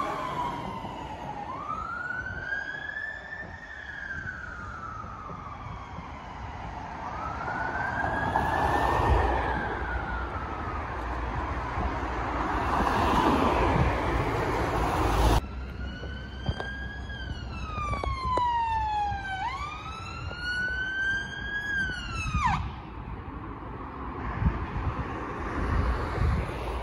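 Emergency vehicle sirens wailing in slow rising and falling sweeps over road traffic noise. A second siren with quicker sweeps comes in about halfway through and cuts off abruptly a few seconds before the end, leaving only traffic.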